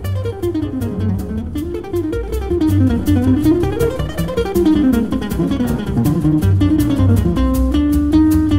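Background music led by a plucked guitar playing quick runs of notes that sweep down and up, over a steady low beat.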